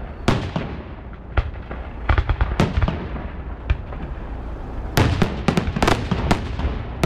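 Fireworks display: aerial shells bursting in quick irregular bangs with echoing rumble, coming in thicker volleys about two seconds in and again about five seconds in.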